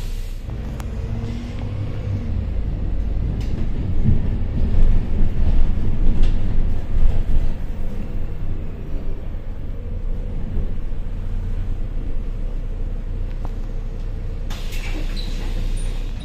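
Volvo Caio Procity city bus on the move: a steady low engine and road rumble that grows louder for a few seconds in the middle, with scattered rattles and a short hiss near the end.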